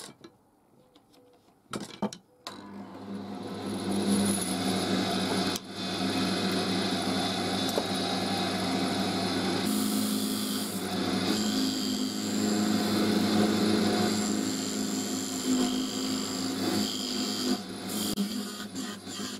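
A few light clicks, then a wood lathe starts up about two seconds in and runs with a steady hum while a hand-held turning tool cuts into the spinning wood with a continuous scraping sound, turning a small post down to 10 mm.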